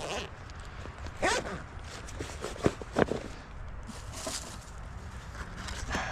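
Footsteps and rustling from a person handling gear, with two short sharp knocks close together about three seconds in.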